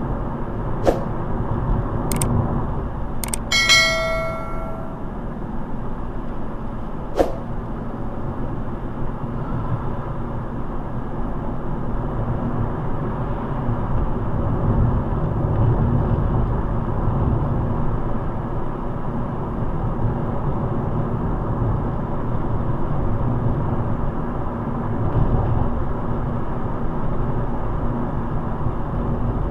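Steady road and engine noise inside a moving car. A few sharp clicks come in the first seven seconds, and a short ringing chime sounds about four seconds in.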